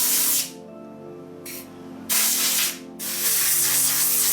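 Milling machine running, its steady motor hum under loud hissing that cuts in and out abruptly three times during a carbide end-mill cut.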